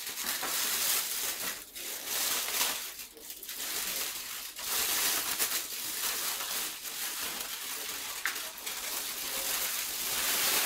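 Aluminium foil crinkling and rustling as it is peeled back and bunched up in the hands, with a few brief pauses.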